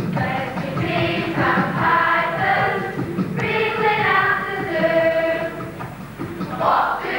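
A group of young voices singing together, a cast chorus number on stage.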